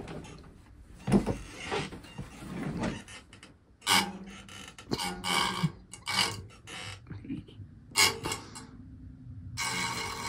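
Scattered clicks and knocks from the front of a gaming PC case being handled. Near the end a steady rattling buzz starts as something is held against the spinning front case fan.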